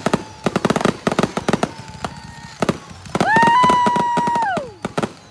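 Fireworks going off, with many sharp crackling pops in quick, irregular succession. About three seconds in, a whistling firework joins them: its tone rises quickly, holds steady for over a second, then slides down and fades.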